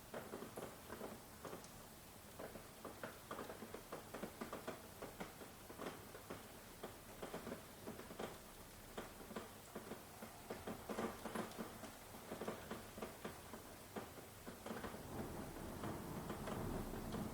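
Rain falling, heard as a faint hiss with many irregular drops pattering and tapping. Near the end it swells, with more low rumble underneath.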